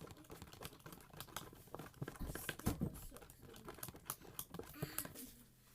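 Sticky homemade glue slime being handled and pulled apart, making an irregular run of wet clicks and crackles.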